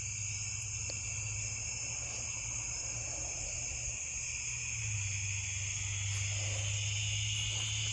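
Evening chorus of crickets and other insects: a steady high-pitched ringing at two pitches.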